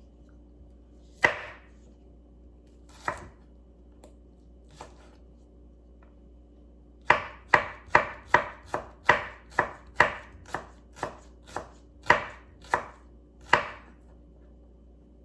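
Knife chopping radish on a cutting board: three single cuts spaced a couple of seconds apart, then a quick run of about a dozen chops, two or three a second, starting about seven seconds in.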